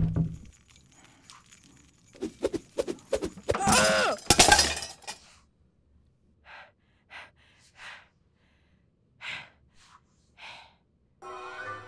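Foley of a clothes iron being jerked along its shelf by a cord: a few sharp knocks, then a loud clattering crash with a wavering metallic ring as it falls and lands. A handful of short, faint sounds follow, about a second apart.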